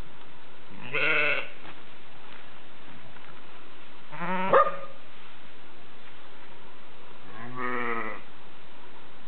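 Sheep bleating three times, each a short quavering call, with a sharp click during the middle one.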